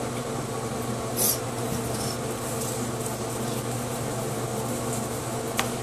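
Steady low hum of a room fan or appliance, with a short hiss about a second in and a single click near the end.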